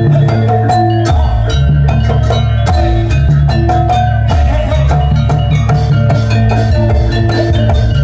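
Javanese jaranan accompaniment music: struck gamelan metallophones ringing short pitched notes over a sustained low tone, with drum strokes keeping a steady rhythm.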